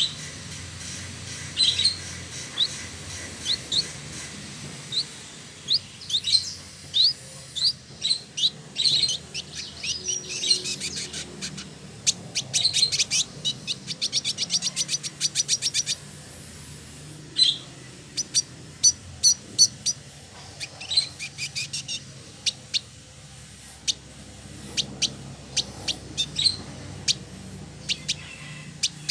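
Male indigo bunting singing in full voice: quick high chirps and sharp slurred notes in bouts, with a long fast rattling trill partway through, over a low steady hum.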